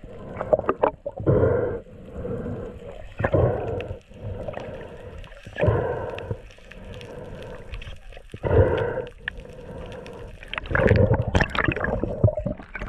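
Underwater sound heard through a camera housing: muffled surges of rushing water every two or three seconds from a freediver's fin kicks, over a faint steady hum.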